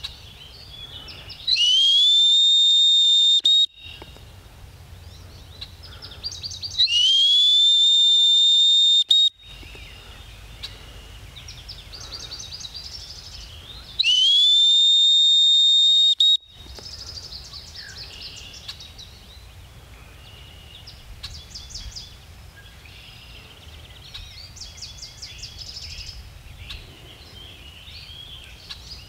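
A dog-training whistle blown three times in long blasts of about two seconds each, every blast sliding up quickly to a steady high note. Small birds chirp between the blasts.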